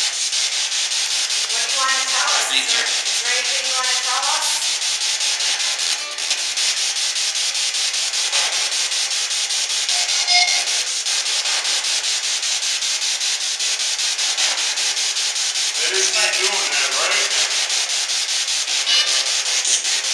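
P-SB7 spirit box sweeping through radio frequencies: a steady hiss of static with a fast choppy flutter, broken by short voice-like snatches about two seconds in and again around sixteen seconds.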